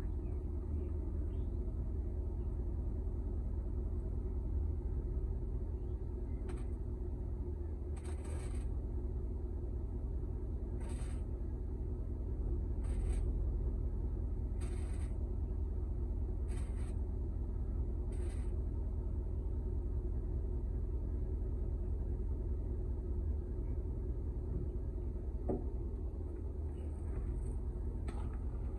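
A car's engine and exhaust running with a steady low rumble, with about seven short hissing bursts between roughly six and eighteen seconds in.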